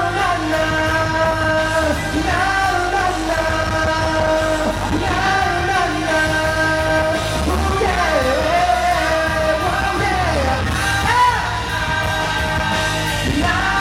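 Live pop-rock band music with a singer's drawn-out, wordless vocal line of long held notes that slide up and down.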